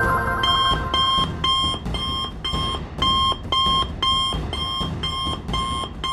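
Cartoon smartwatch communicator ringing with an incoming-call alert: short, even electronic beeps, about two a second, starting about half a second in.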